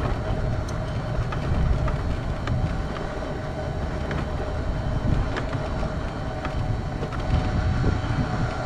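Quickie power wheelchair driving over cracked asphalt: a steady motor whine over the low rumble of the wheels on the rough surface, with scattered small clicks and rattles from the chair.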